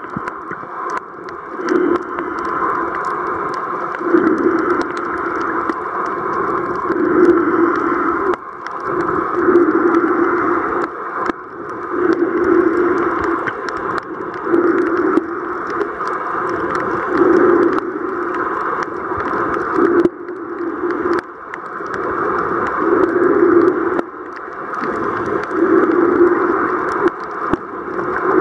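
Muffled, steady rushing water noise recorded underwater, swelling and easing about every two and a half seconds, with a few faint clicks.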